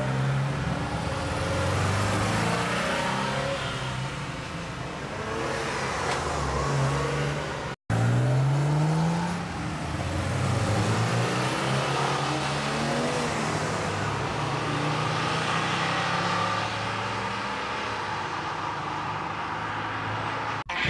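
An early air-cooled Porsche 911 flat-six accelerating away, its engine pitch climbing and stepping up through the gears. After a short gap about eight seconds in, another Porsche revs and pulls away with a rising engine note.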